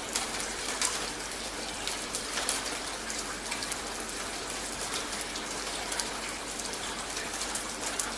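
Steady rain falling on a wet street: an even hiss with many separate drop splashes ticking through it.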